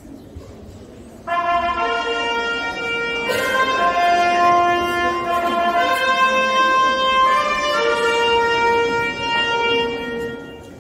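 A slow tune played as long held notes in a reedy, wind-instrument tone, sometimes two notes sounding together. It starts about a second in and fades out near the end.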